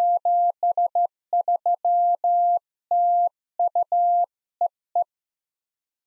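Morse code sent on the AD5DZ software keyer: a single steady mid-pitched sidetone keyed on and off in a run of short dits and long dahs, stopping about five seconds in.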